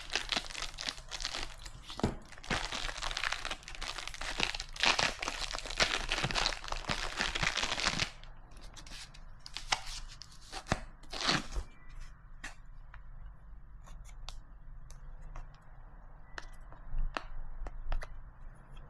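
Plastic packaging of a phone case crinkling and tearing for about eight seconds, followed by scattered clicks and taps of the case and packaging being handled.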